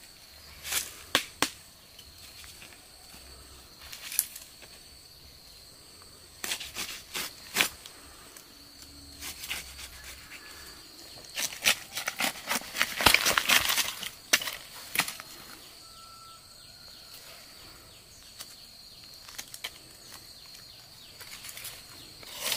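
A knife cutting into a ripe jackfruit: scattered cuts and knocks on the knobbly rind, with a longer run of crackling and tearing about halfway through as the fruit is split open. A faint steady high whine runs underneath.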